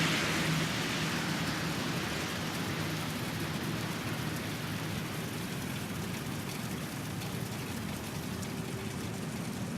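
Steady rain falling, an even hiss of drops on a surface that eases slightly over the first couple of seconds and then holds.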